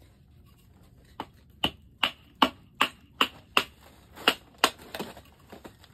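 A wooden baton striking the spine of a Bloodline Bushcraft Survival Knife to drive its blade down through a piece of wood. About eleven sharp knocks come at a steady two or three a second, starting about a second in, with a few fainter taps near the end.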